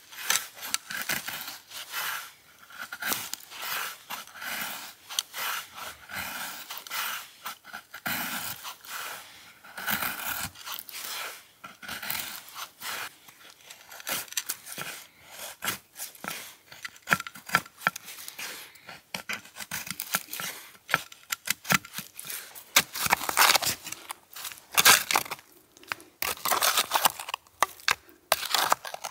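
Irregular rustling, scraping and crunching: a dense run of short scrapes and crackles.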